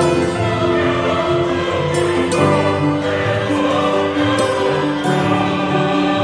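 Music with choral singing in long held notes.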